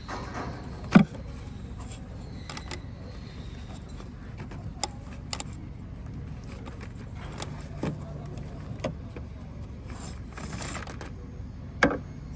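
Scattered sharp clicks and knocks of hand work on the engine: a stuck ignition coil pack being twisted and worked loose with a screwdriver. The loudest knock comes about a second in, another strong one near the end, over a steady low background rumble.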